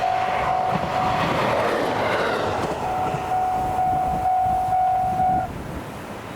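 Japanese level-crossing warning bell ringing with its steady pulsing electronic tone while a train passes over the crossing, its noise swelling up and partly drowning the bell about a second or two in. The bell cuts off suddenly a little over five seconds in, as the crossing clears.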